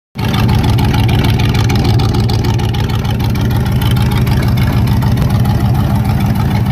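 A 350 V8 in a 1988 Jeep Comanche idling steadily and loudly, heard close to its exhaust pipe as an even, low exhaust note.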